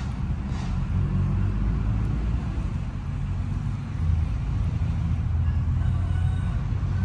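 Steady low rumble of a motor vehicle engine running nearby.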